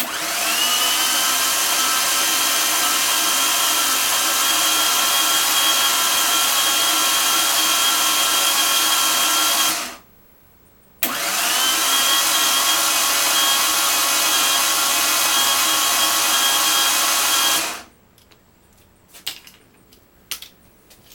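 Starter motor cranking a rebuilt Mazda 3.0L V6: a steady whine that rises quickly as it spins up. It cranks for about ten seconds, stops for a second, then cranks for about seven more. The cranking is meant to prime the oil system, but the pump delivers no oil to the open filter and sender holes.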